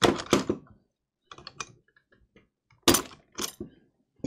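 Sharp clicks and clacks of pliers worked against a reciprocating saw's blade clamp. There is a loud pair at the start, a fainter scatter in the middle and another loud pair about three seconds in.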